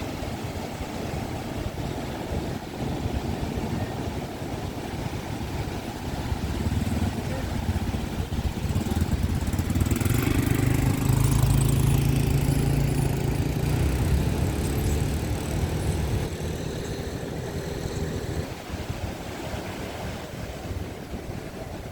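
Calm surf washing on the shore while a motorboat engine passes offshore, growing to its loudest about midway and fading away a few seconds later.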